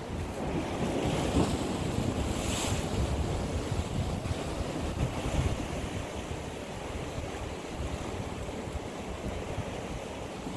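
Sea waves washing against a rocky shore, with wind buffeting the microphone; a wave surges about a second in.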